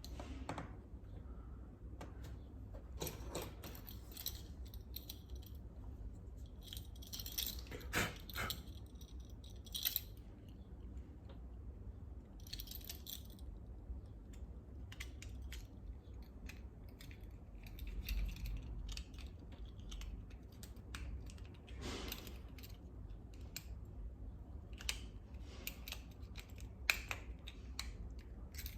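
Scattered small clicks, taps and scrapes of a car key fob remote being handled and its plastic casing fitted back together over the new coin cell batteries, with a few sharper clicks, the sharpest near the end.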